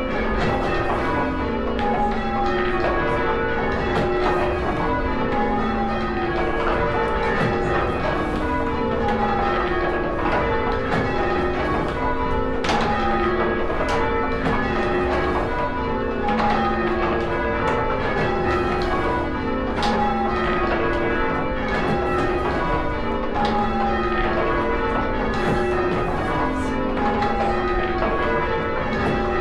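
Six church bells rung in English change-ringing style, struck one after another in a continuous, evenly paced sequence. Each round of strokes runs down from the highest bell to the lowest.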